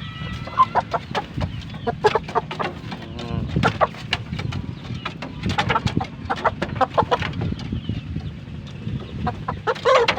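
Bangkok fighting chicken clucking in short, irregular calls that come in quick clusters. The bird has recovered from ngorok, the snoring respiratory illness, and no snoring is named in its voice.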